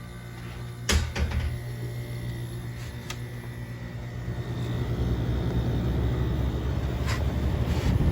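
1993 Carrier Weathermaker window air conditioner, with a Tecumseh RK rotary compressor, starting up: a steady low hum with a sharp knock about a second in, then rushing air building and growing louder from about halfway as the unit comes up to speed.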